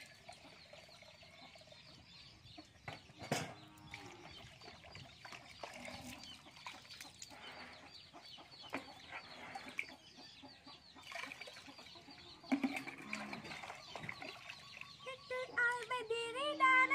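Chickens clucking, with a sharp knock about three seconds in.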